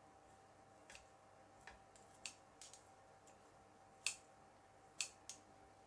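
Metal kitchen tongs clicking as grilled pork slices are picked up and set on a bowl of noodle salad: about eight short, sharp, light clicks, the loudest about four and five seconds in.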